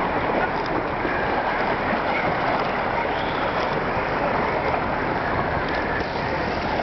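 Small lake waves lapping and splashing against a rock embankment, a steady wash of water noise.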